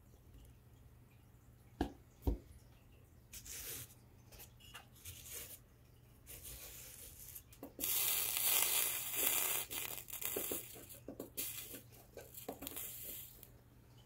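Flux and molten solder sizzling and spitting under a large soldering iron as a metal hinge is soldered onto a sheet-metal body panel. The sizzling comes in short bursts, then in a long loud stretch over the second half. Two sharp knocks come about two seconds in.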